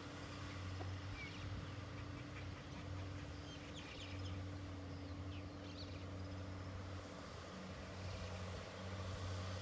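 Tractor engine running as a steady low drone while it ploughs the field, with a few short bird chirps about four seconds in.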